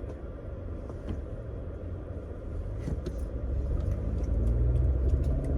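Low rumble of a car heard from inside the cabin, growing louder in the second half as a faint engine tone rises, as when the car picks up speed.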